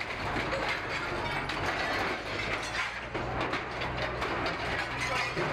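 Heavy machinery's diesel engine running under a dense, rapid metallic clattering and clanking during demolition work.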